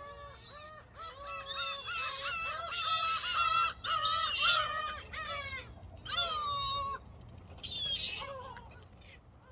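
A flock of gulls calling together, many harsh, rapidly repeated cries overlapping. The calls are loudest in the first half and come in a few more bursts before dying down near the end.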